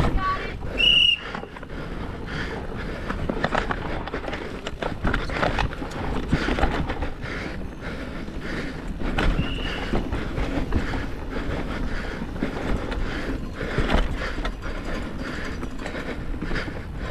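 Downhill mountain bike clattering over a rough, rocky trail at speed, with tyres striking rock and the bike knocking and rattling in a dense, uneven stream. Two short high-pitched squeals stand out, about a second in and again near ten seconds.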